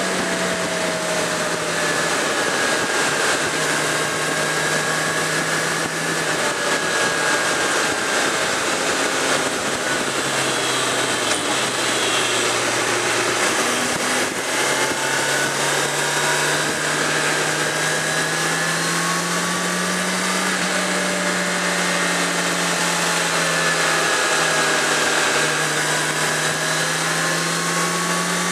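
Suzuki GSX650F's inline-four engine running under way, heard on board with steady wind rush. Its note holds, falls away about a third of the way in, then climbs again and stays up.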